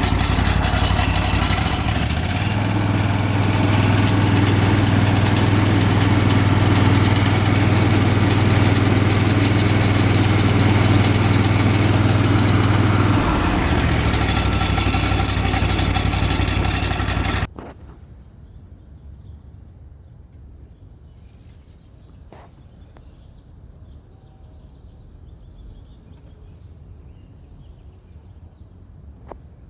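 Exmark zero-turn mower running with a loud noise from its aftermarket PTO clutch, a noise the owner can't pin down. The engine speed shifts about two seconds in and again past the middle, then the engine shuts off suddenly a little over halfway through, leaving a faint background with a couple of small clicks.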